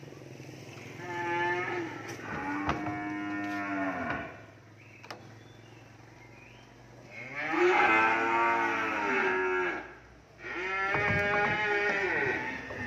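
Cattle mooing: four long moos, with a pause in the middle, the loudest about eight seconds in.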